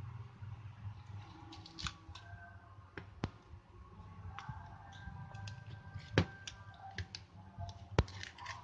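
Plastic back cover of a Coolpad E571 phone being pried off by hand: an irregular run of sharp clicks as its clips snap loose, the loudest about six seconds in and another about eight seconds in.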